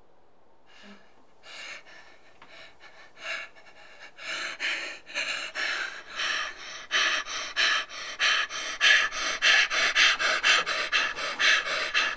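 A person panting in short, hard breaths that start faint, grow louder and quicker, and cut off suddenly at the end.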